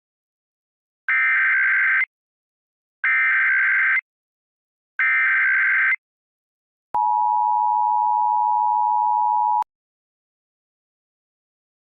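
Emergency Alert System SAME header: three buzzy, warbling data bursts of about a second each, a second apart, followed by the EAS two-tone attention signal held steady for about two and a half seconds and cut off suddenly.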